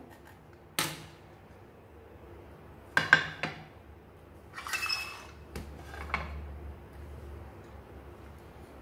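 Stainless-steel idli plates and a serving platter being handled and set down on a stone countertop: a few separate knocks and clinks, with one short metallic ring about five seconds in.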